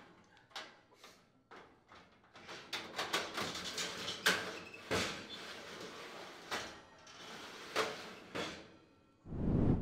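Broiler drawer of a Frigidaire gas range sliding in on its metal glides and being pushed shut: a run of clicks, knocks and rattles, with a busier stretch of sliding scrape in the middle. Just before the end a short, loud, low burst begins.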